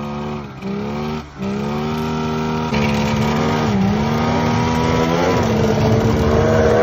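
Turbocharged snowmobile engine held at high revs while the sled is stuck in deep snow. The throttle drops off briefly twice early on, then the engine comes back on louder and holds its note, waiting for the turbo to spool up.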